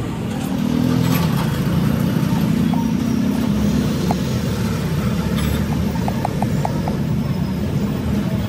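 A steady low mechanical rumble, like machinery running, with a few light ticks about six to seven seconds in.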